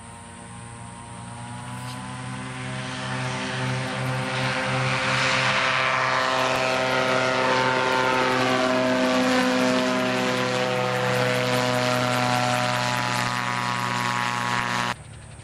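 Dominator gyroplane's Viking aircraft engine and pusher propeller at takeoff power, a steady droning tone. It grows louder over the first few seconds as the gyroplane lifts off and climbs, holds, then cuts off suddenly near the end.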